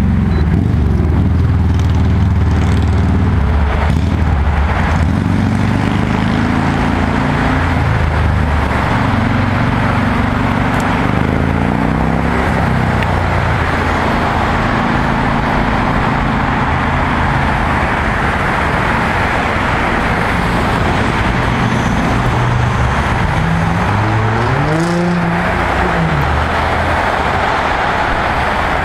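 Road traffic: a steady roar of tyres with the changing engine notes of passing vehicles. Near the end one engine note rises and then falls.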